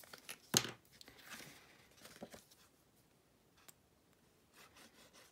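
A liquid glue bottle being uncapped and card stock handled: one sharp click about half a second in, then soft paper rustling and a faint tick.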